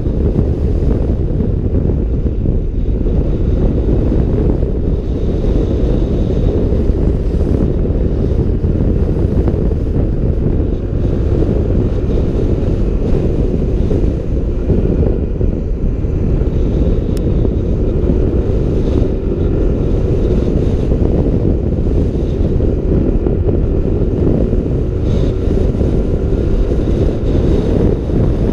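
Wind buffeting the microphone on a Yamaha NMAX scooter ride at speed: a steady low rumble, with a faint engine drone beneath it in the second half.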